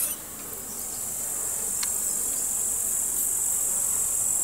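Summer insects chirring in a steady, high-pitched chorus, with a faint click about two seconds in.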